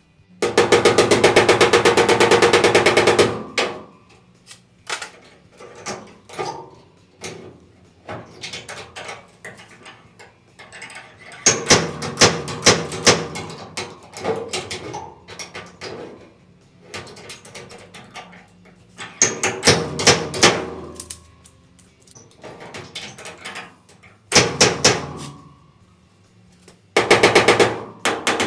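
Rapid bursts of hammering on a sheet-metal wheel-arch panel, with scattered single taps between the bursts. The steel is being worked to take the flop out of the loose panel and give it shape and strength.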